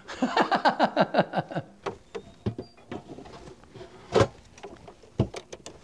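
Handling noises while equipment is set up: a quick run of falling squeaks, then light clicks, one sharp knock about four seconds in and a dull thump near the end.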